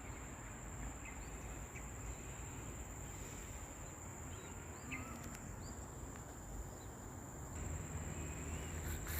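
Insects droning steadily at one high pitch, with a few faint, short bird chirps in the middle.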